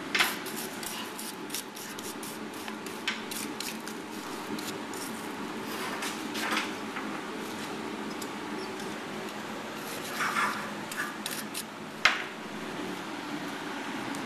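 Steel bars and tools clinking and scraping on a steel workbench while red-hot iron is handled: scattered light clanks, with sharper knocks just after the start and near the end. A steady low hum runs underneath.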